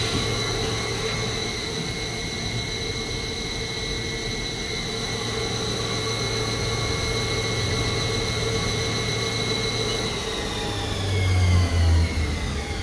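Haas SL40T CNC lathe spindle spinning at steady speed with a high whine over a low hum. About ten seconds in the spindle begins to spin down, the whine falling in pitch, with a short louder low hum near the end.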